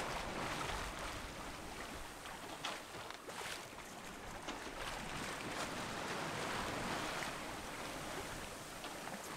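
Water rushing and splashing along the hull of a sailboat under sail through a choppy sea, a steady wash with scattered small splashes.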